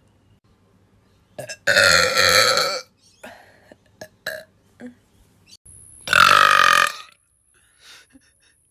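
Two loud, drawn-out burps, each about a second long: one about two seconds in and one about six seconds in, with a few short, small sounds between them.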